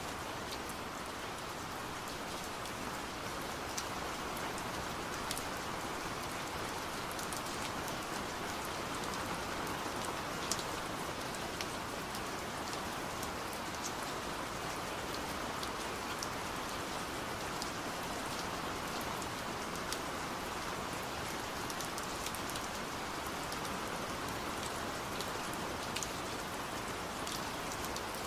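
Steady rainfall hissing, with scattered sharp taps of individual drops striking a surface.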